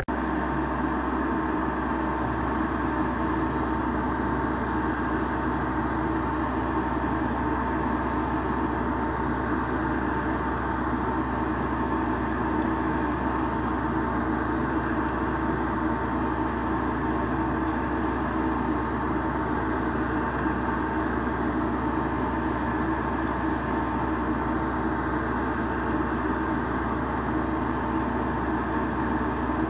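Steady drone of an electric motor in an airbrushing setup, with a low hum and a constant hiss under it.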